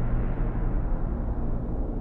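Dark ambient horror drone: a steady deep rumble with held low tones underneath.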